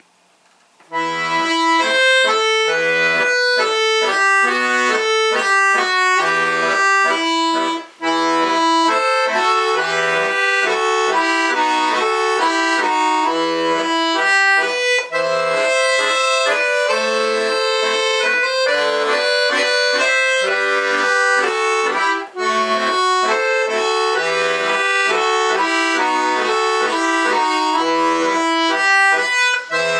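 Solo bayan (Russian button accordion) playing a folk-style piece, starting about a second in after a brief silence. A melody runs over steady bass notes and chords, with short breaks in the sound about a third of the way in, two-thirds in and near the end.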